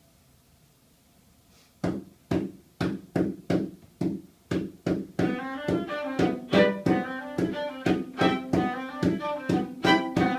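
A string quartet playing: after a brief hush, a run of sharp percussive strokes about two a second, struck or plucked on the strings. About five seconds in, sustained notes join the strokes.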